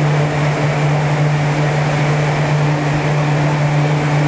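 Steady, loud hum of the air-supported sports dome's blower fans: one constant low tone under an even rushing noise.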